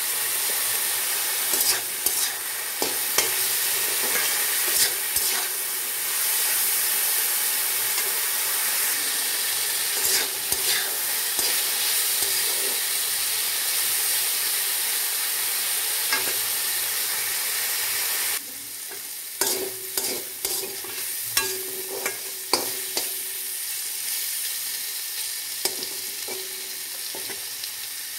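Sliced pointed gourd and potatoes sizzling in mustard oil in a metal karai while a spatula stirs them, clicking and scraping against the pan. About two thirds of the way through the sizzle drops noticeably quieter and the spatula's knocks and scrapes stand out more.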